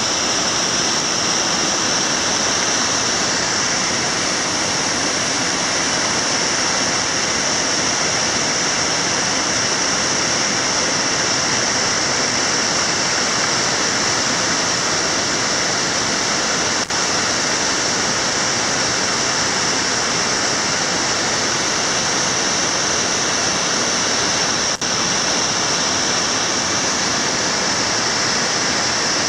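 A waterfall rushing steadily: a dense, unbroken roar of falling water.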